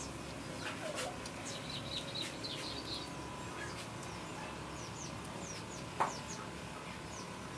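Small birds chirping in the background: a flurry of short high chirps in the first few seconds, then quick falling calls. A sharp click comes about six seconds in, and a faint steady tone runs underneath.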